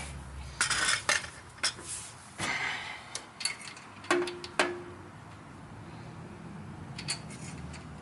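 Metal tools clinking and clattering as a wrench and socket are handled and switched over, with a few sharp clicks and one short ringing clink about four seconds in.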